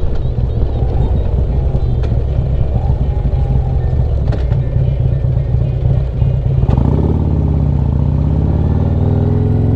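Harley-Davidson Street Glide's V-twin engine running while under way. About seven seconds in, the engine note changes, dipping and then rising again.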